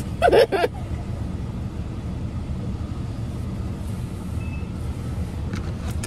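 Car idling, heard from inside the cabin: a steady low rumble. A short burst of voice comes about half a second in, and a couple of faint clicks near the end.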